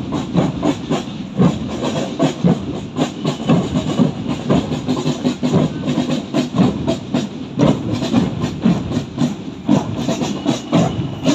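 Street noise of a marching crowd: a dense, irregular clatter of knocks over a steady hiss.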